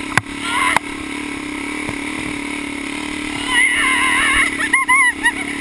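Suzuki dirt bike's single-cylinder engine running at a steady pitch, with two sharp knocks in the first second. Over the last two seconds a higher, wavering sound joins it.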